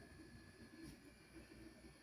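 Near silence: faint room tone with one faint tick about a second in.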